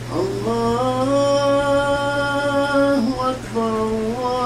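A single man's voice chanting in Arabic in long, held notes that slide up in pitch and then hold, with a brief break about three seconds in. A steady low hum runs underneath.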